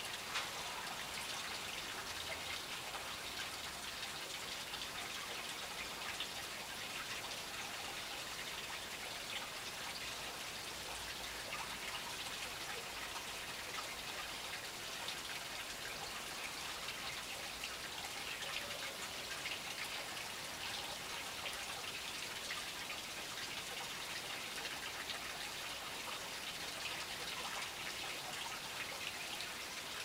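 Small garden fountain splashing steadily, a continuous patter of falling water.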